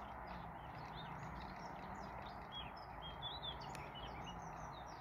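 Distant wild birds calling: many short, high chirps and slurred notes, overlapping and scattered, over a steady outdoor hiss, with one sharp tick between three and four seconds in.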